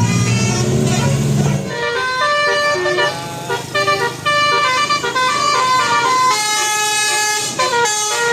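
Telolet Basuri multi-tone bus horn playing a quick melody. Several horn notes sound together and step from pitch to pitch every fraction of a second. A low droning tone runs underneath for the first second and a half.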